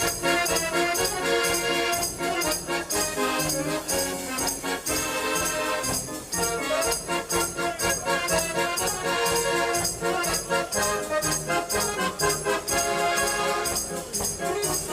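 A 105-key Decap fairground organ playing a tune, organ pipes over a steady percussion beat.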